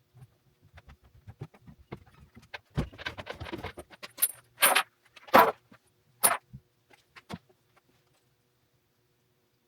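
Metal objects clinking and clanking against each other among scattered lighter knocks, a few sharp ringing clinks loudest in the middle, then quiet.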